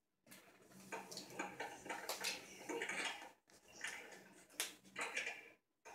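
A cat moving about inside a cardboard box tunnel, its claws and body scratching, rustling and tapping on the cardboard in irregular bursts.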